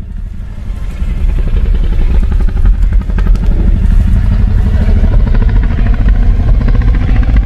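Indominus rex creature sound effect: a long, loud, low rumbling vocalization with a fast pulsing, rattling texture.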